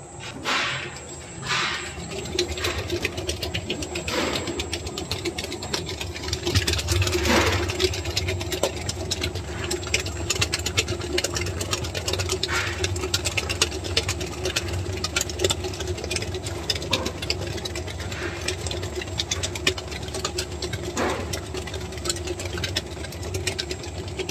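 Commercial planetary mixer running steadily, its motor humming and its beater rattling as it creams ghee, sugar and mango pulp. The machine noise comes up about two seconds in, after a couple of short knocks.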